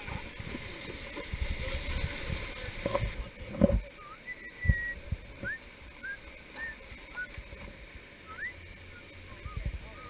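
Whitewater river rapids rushing and splashing around a raft, with water buffeting the microphone and two loud thumps around four and five seconds in. From about four seconds in, a string of short rising whistle-like chirps sounds over the water.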